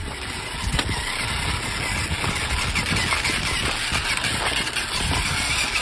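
Small RC rock crawler's electric motor and gearbox whining steadily as it drives, the whine rising slightly in pitch, with small clicks and scrapes of the tyres on rock.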